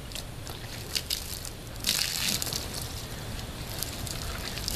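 Water poured from a plastic container over a man's head, splashing loudly onto his suit about two seconds in, then pattering and dripping.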